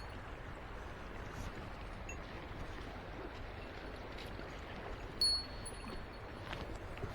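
Mountain stream rushing steadily, with a brief high metallic jingle ringing about five seconds in and a few faint ticks.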